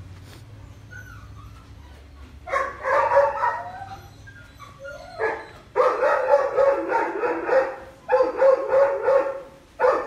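Doberman barking in several runs of quick barks, the first about two and a half seconds in.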